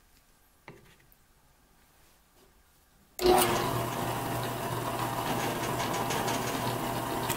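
A small click about a second in, then a drill press motor switched on about three seconds in, starting with a jolt and running steadily with a low hum and a noisy whir.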